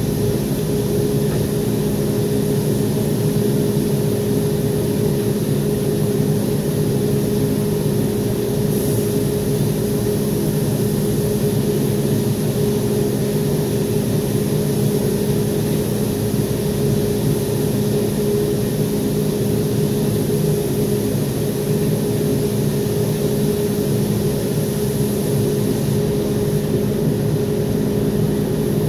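Steady low hum of a spray-booth fan with the high hiss of compressed air from a gravity-feed spray gun spraying finish onto a guitar body.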